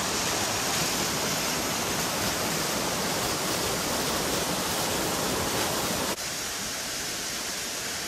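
Waterfall, water pouring over mossy rock, a steady rush of noise; it steps down slightly in level about six seconds in.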